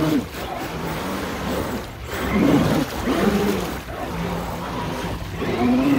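Electric motors and drivetrains of scale RC 4x4 trucks (Axial AX10 and Traxxas TRX-4 Sport) whining as they are throttled through deep mud and water, the pitch rising and falling several times, with churning and splashing of the muddy water.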